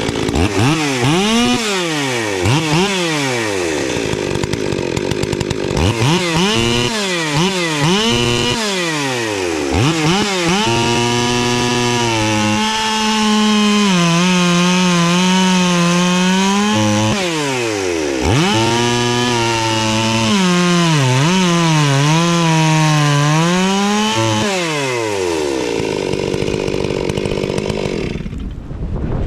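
Ported Stihl MS440 chainsaw with a dual-pipe muffler, revved in quick blips, then held at a steadier, lower pitch under load as it cuts through wood, twice. It dies down near the end.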